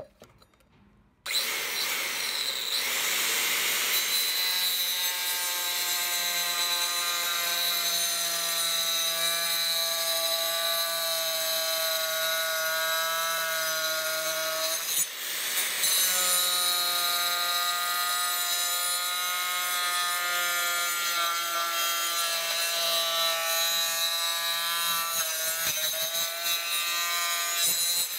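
Electric saw running steadily as it cuts through the car's 12 V battery tray, a loud motor whine over the cutting. It starts about a second in, pauses briefly about halfway, then runs again until just before the end.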